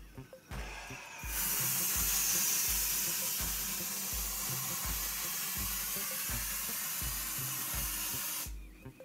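Aerosol spray can hissing in one long continuous spray lasting about seven seconds, starting a second or so in and stopping shortly before the end. Underneath, a quiet backing track with a steady low beat.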